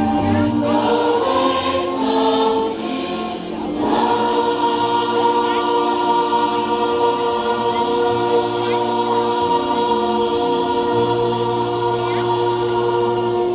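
Gospel-style choir music: many voices singing over accompaniment, settling into one long held chord from about four seconds in.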